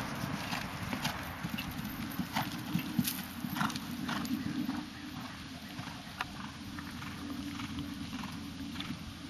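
Hoofbeats of a seven-year-old warmblood mare cantering on sand arena footing: a run of irregular dull knocks, louder in the first half and dropping off about halfway through as she moves away.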